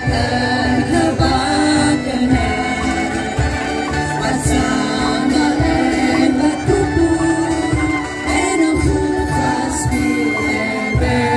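Angklung ensemble playing a song: bamboo angklung tubes shaken for rattling pitched notes, with a woman singing, a cajon keeping a steady beat and an acoustic guitar.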